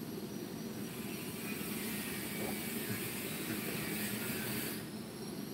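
Steady low rumbling background noise with a hiss over it; the hiss swells from about a second and a half in and eases off near the end.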